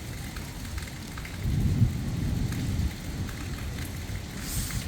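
Steady rain with scattered drops, and a low rumble of thunder that swells about a second and a half in and dies down about a second and a half later.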